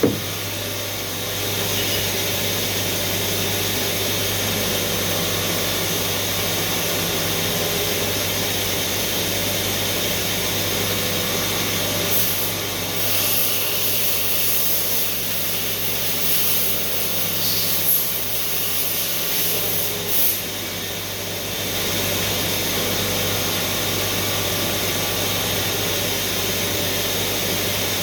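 Steady mechanical hum of a running Doosan CNC machine, with a spell of hissing from about 12 to 21 seconds in.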